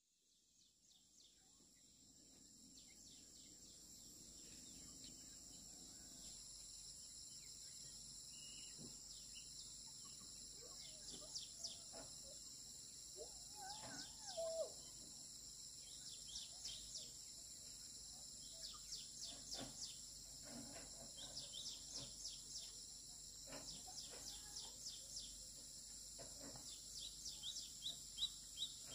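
Faint rural forest ambience fading in: a steady high insect drone with frequent short bird chirps, and a faint distant voice about halfway through.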